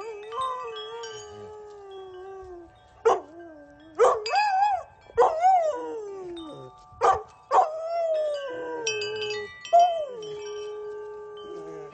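Golden retriever howling in a series of long, wavering howls that slide up and fall away, while metal tube wind chimes ring steadily behind.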